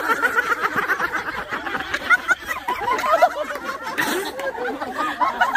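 A small group of people laughing and talking over one another, several voices at once with snickers and chuckles mixed in.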